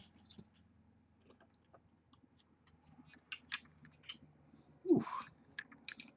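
Faint small clicks and rustles of trading cards and plastic card holders being handled, with a louder brief scrape about five seconds in.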